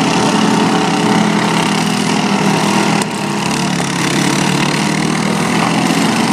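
Several riding lawn mower engines running together in a steady, loud drone, with a brief sharp knock about three seconds in.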